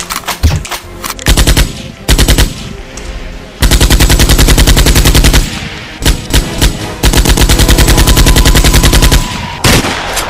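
Automatic airsoft rifle fire in bursts of rapid, evenly spaced shots. Two short bursts come first, then a long burst lasting nearly two seconds, another short burst, and a second long burst of over two seconds.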